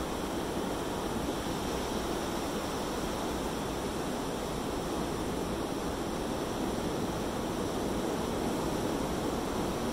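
Surf washing up on a sandy beach, a steady, even rush of water.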